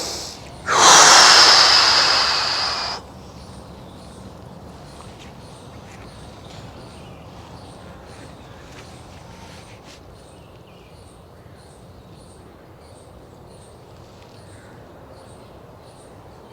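A person breathing out hard and fully for about two seconds, starting about a second in: the lungs being emptied before the breath is held out (bahya kumbhak). Then only a low background hiss with faint, evenly spaced high ticks while the breath is held.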